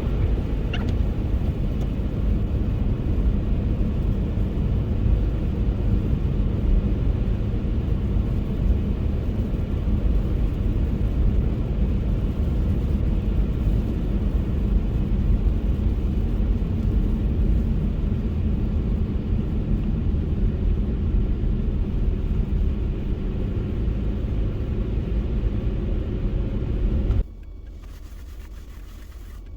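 Car driving on a snow-covered road: a steady low rumble of engine and tyre noise, which drops suddenly to a quieter hum about 27 seconds in.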